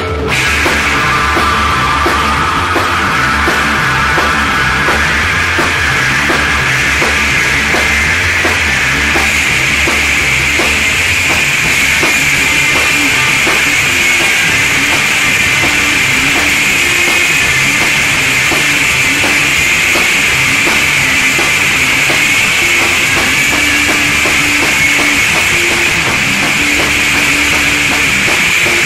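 Heavy psychedelic rock music: a loud, dense full band led by a driving drum kit with cymbals.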